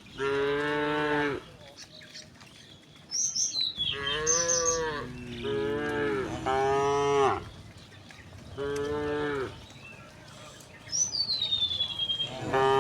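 Cows mooing: about six separate moos, each around a second long, some in quick succession. Short high bird chirps and a falling whistle come between the calls.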